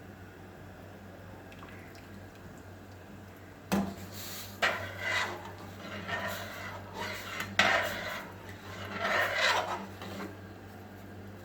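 A kitchen utensil scraping and clinking against a pot or bowl in irregular strokes, starting about four seconds in, over a low steady hum.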